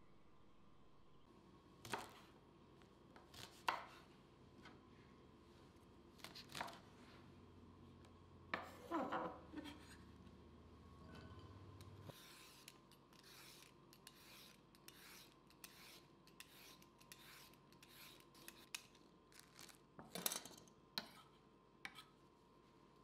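A Y-shaped vegetable peeler scraping down a carrot over a wooden cutting board in quick, even strokes, about two a second, with a few sharper knife cuts on the board near the end. Several separate knocks on the board come earlier.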